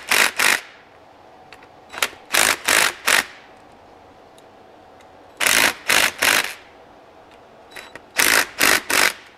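DeWalt 20V cordless impact driver snugging down the cover bolts on a PTO case in short trigger pulls: four groups of three or four quick bursts, a couple of seconds apart, one bolt after another.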